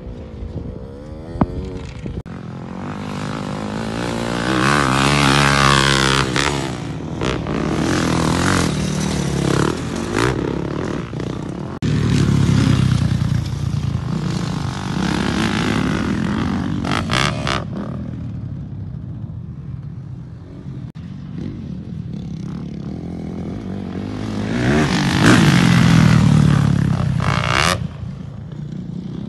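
2019 KTM 350 four-stroke single-cylinder motocross bike being ridden hard around a dirt track. The engine revs up and falls away repeatedly through gear changes and jumps, and grows loudest three times as the bike passes close.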